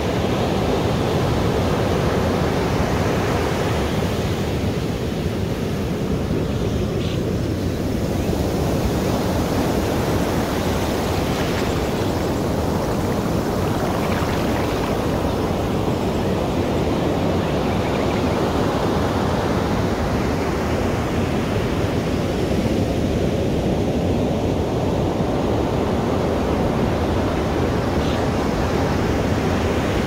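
Ocean surf: a steady rush of waves breaking on a beach, swelling and easing every several seconds.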